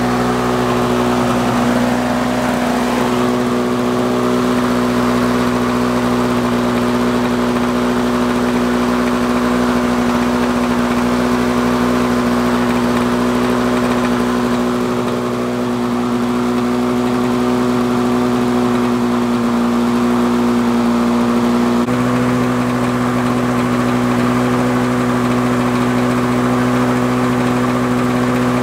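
Lawn Boy 4651 two-stroke lawn mower engine running steadily and fast with the throttle set to full, on its first run after months in winter storage. There is one small step in pitch about three quarters of the way in.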